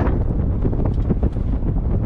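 Heavy wind buffeting the microphone at speed, over a low, steady rumble of travel.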